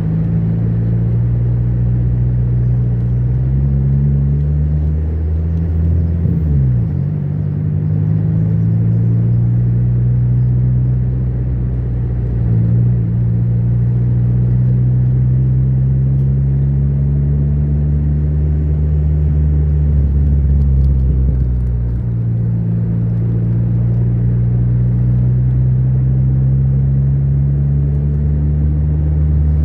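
Car engine and road noise heard from inside the cabin while driving. The low engine hum rises and falls in pitch a few times, with a sharp change about six or seven seconds in and another about twenty-two seconds in.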